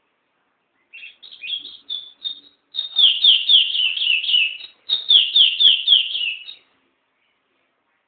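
Small caged songbird singing. A few scattered chirps start about a second in, then come two fast runs of repeated falling notes, about four a second, and the song stops shortly before the end.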